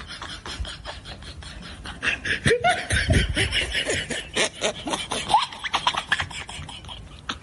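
Laughter in quick bursts, louder from about two seconds in, cutting off abruptly at the end.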